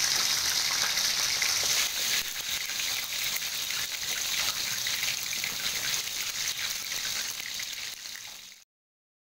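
Hot oil sizzling steadily as fish and chicken pieces deep-fry in woks. It fades near the end and cuts off suddenly.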